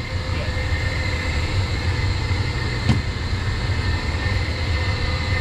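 Steady low hum of running machinery in a commercial hydronic boiler room (circulator pumps and boilers), with faint steady whining tones above it. One sharp knock comes about three seconds in.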